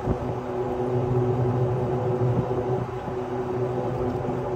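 Coleman electric golf cart driving at full speed up a hill at about 19 to 20 mph: a steady hum of the drive with tyre and road noise, holding an even pitch.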